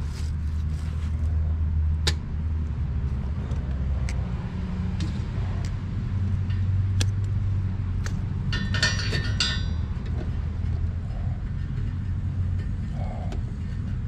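Low steady rumble, with a few sharp clicks of hands handling wiring and tools and a short clinking rattle of a metal hand tool about nine seconds in.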